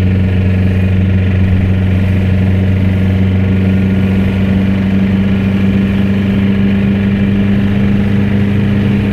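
Škoda Octavia RS's 1.8-litre turbocharged four-cylinder engine droning steadily at a constant pitch while cruising, heard from inside the cabin together with road noise.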